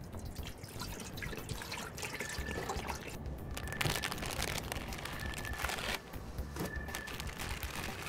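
Water pouring from a plastic bottle into an aluminium pot, splashing as it fills.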